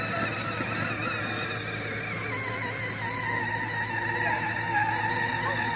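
Battery-powered ride-on toy quad driving along, its electric motor and gearbox giving a steady whine that wavers slightly in pitch.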